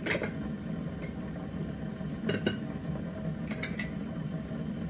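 A coffee mug and spoon clinking several times as coffee is fixed, with a steady low hum underneath.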